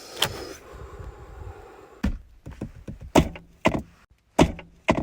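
A series of short, sharp knocks or thuds, about seven in all, irregularly spaced and loudest in the second half.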